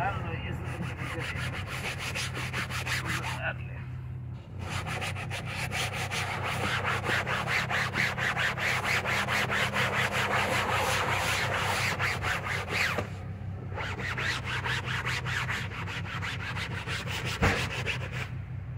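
A cloth scrubbing a car's fabric headliner in quick back-and-forth strokes, with a steady low hum underneath. The scrubbing stops briefly twice.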